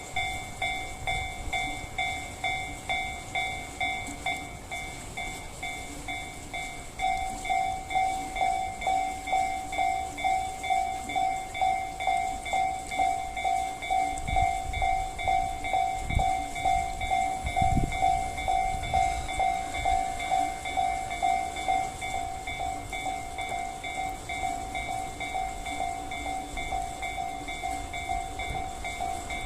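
Japanese railway level-crossing alarm ringing its repeated 'kan-kan' bell, about one and a half strikes a second, louder from about seven seconds in. A few low rumbles come in near the middle.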